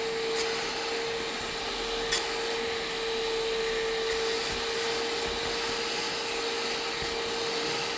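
Bissell portable carpet and upholstery spot cleaner's suction motor running steadily, a constant hum and hiss of air as the nozzle is drawn over wet fabric to suck up the cleaning water, with a couple of brief faint clicks.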